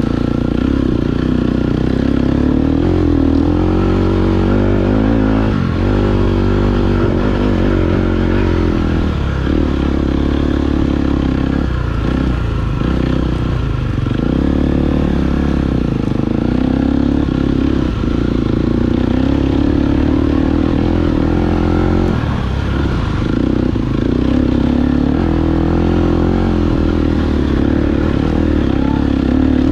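KTM 250 EXC-F Six Days single-cylinder four-stroke enduro engine running under load on a trail, its pitch rising and dropping repeatedly as the throttle is opened and shut.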